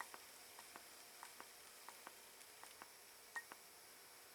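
Primer bulb on a Ryobi S430 four-stroke trimmer's carburetor being pumped by hand: faint paired clicks, press and release, repeating about every half second, six or so times.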